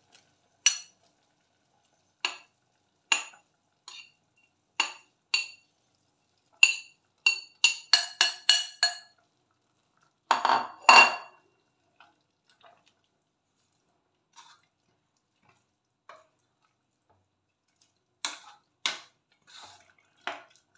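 A metal spoon clinking and scraping against a ceramic plate and the rim of a pressure cooker pot as pounded cassava leaves are scraped in and stirred: single ringing clinks, a quick run of them, and a louder clatter about ten seconds in.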